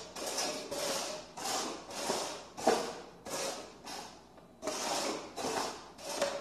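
Upturned red plastic cups being slid and shuffled across a wooden floor: a run of short scraping swishes, about two a second.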